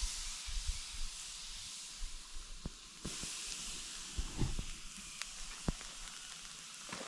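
Pork cuts and chorizos sizzling on an asado grill: a steady frying hiss with scattered small pops and crackles.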